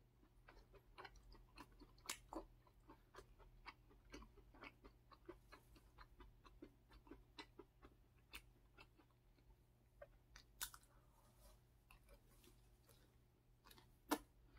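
Close-up chewing of a soft homemade waffle filled with blueberries: faint, irregular wet clicks of the mouth working, with a couple of louder ones about two seconds in and near the end.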